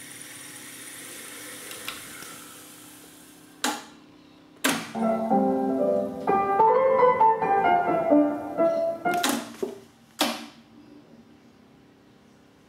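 Music played back on a TEAC X-1000R reel-to-reel tape deck: a few seconds of piano-like keyboard music in the middle, with sharp clicks before and after it. A steady hiss fades away in the first few seconds, and there is faint hiss near the end.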